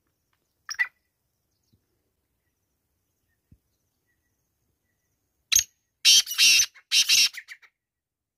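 Male black francolin calling: a single short note about a second in, then near the end a loud, harsh call of several quick notes in a row.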